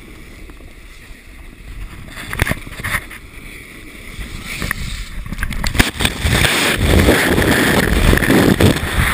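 Sledge scraping and hissing over a snowy road while towed, with a few sharp knocks. From about six seconds in it becomes a loud rough rushing and scraping as the rider and the camera are dragged through the snow.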